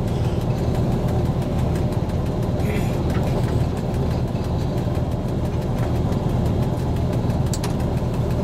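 SU45 diesel locomotive's engine running steadily, heard from inside its cab while the train rolls along the track. A short sharp click about seven and a half seconds in.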